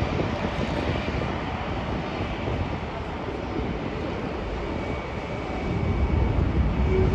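Jet airliner engines: a steady rumble with a faint high whine, the low rumble growing louder about six seconds in.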